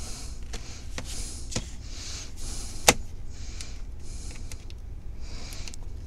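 A pry tool scraping along the seam of a Lenovo IdeaPad 3 laptop's bottom cover in short strokes, with sharp clicks as it catches on the edge, the loudest about three seconds in.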